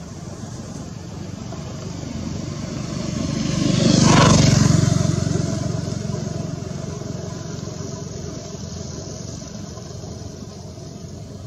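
A motor vehicle passing by: a rumble that grows to its loudest about four seconds in, then fades away.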